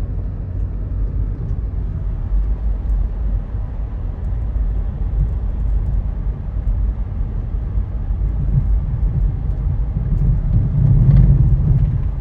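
Steady low rumble of a car moving slowly, road and engine noise heard from inside the cabin, swelling slightly near the end.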